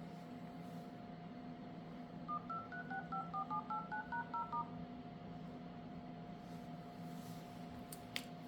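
The Samsung Galaxy Z Flip 5's loudspeaker plays a short electronic melody of quick beeps, two tones at a time, stepping up and down in pitch for a couple of seconds. A steady hum runs underneath, and a single click comes near the end.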